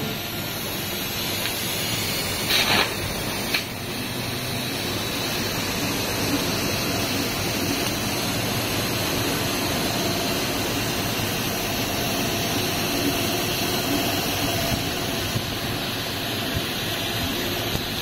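Fiber laser cutting 22 mm steel plate with oxygen assist gas: a steady rushing hiss of the oxygen jet and burning steel at the cutting head. There is a brief louder burst about two and a half seconds in.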